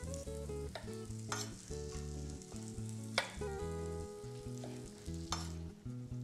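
Background music with held, changing notes, over about three sharp chops of a chef's knife through charred tomatoes onto a wooden cutting board.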